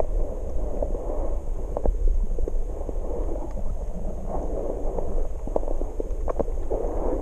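Muffled underwater rumble and water noise heard through a submerged camera's housing, with scattered short clicks and crackles and a faint steady high whine.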